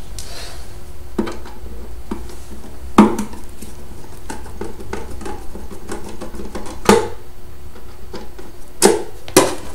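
Light metallic clicks and knocks of a screwdriver undoing screws in a metal equipment case, scattered and irregular, with louder knocks about three and seven seconds in and twice near the end.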